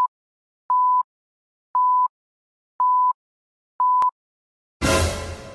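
Film-leader countdown beeps: a short, steady, high beep about once a second, four of them plus the tail of one more, the beeps marking each number of the countdown. A sharp click follows the last beep, and near the end a sudden loud noisy burst starts and fades.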